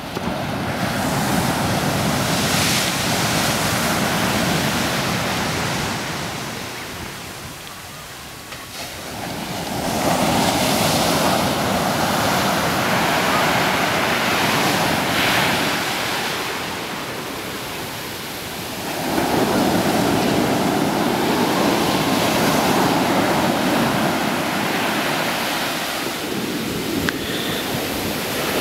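Ocean surf breaking and washing up a sandy beach, swelling and easing in three long surges.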